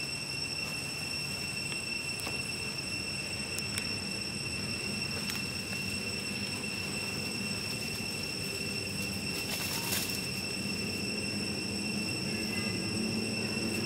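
Forest ambience: a steady high-pitched insect drone over a low rumble, with a few soft clicks and rustles, the clearest about ten seconds in.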